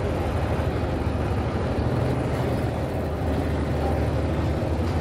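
Busy city street ambience: a steady low rumble of traffic.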